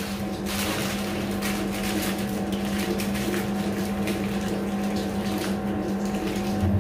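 Aluminium foil crinkling as a foil parcel of fish is folded and pressed shut by hand, in irregular crackles, over a steady low hum.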